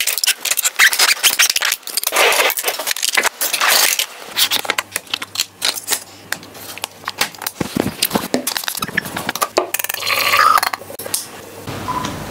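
Rapid clicks, clacks and rattles of photo studio gear being handled: metal light stands knocking, and a lens being fitted to a camera body.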